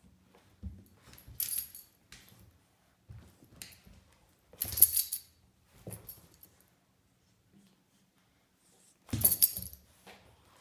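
A metal ID tag on a Boston terrier's collar jingles in short bursts as the dog tussles with a kitten, along with soft scuffles and thumps on a tile floor. The jingling is loudest about halfway through and near the end.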